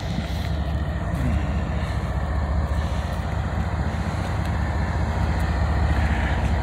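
Diesel freight locomotive approaching: a steady low engine rumble that grows slowly louder.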